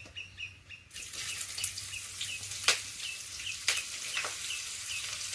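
Green chillies sizzling in hot tempering oil with mustard seeds, the sizzle starting about a second in, with several sharp pops from the spices. A bird chirps repeatedly in the background.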